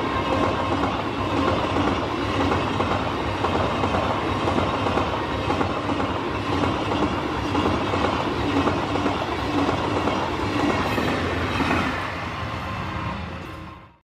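Passenger train coaches passing at speed close by: a steady rush and rattle of wheels on the rails, dying away over the last two seconds.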